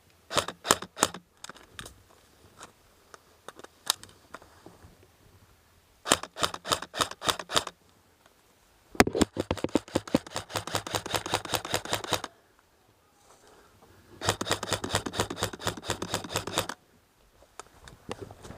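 Airsoft guns firing: four bursts of rapid sharp clicks, the longest about three seconds.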